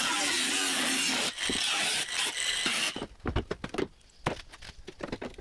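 Milwaukee angle grinder grinding the edge of a cut-out in a sheet-steel car floor pan, a steady hissing grind that stops about three seconds in. It is followed by a few light metal knocks and clatters as a steel patch panel is fitted into the hole.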